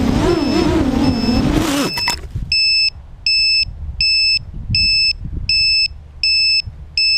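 FPV quadcopter's brushless motors whining, pitch rising and falling with the throttle, over a faint repeating high beep. About two seconds in the motors cut off suddenly, leaving an electronic beeper sounding a short high beep about once every three quarters of a second.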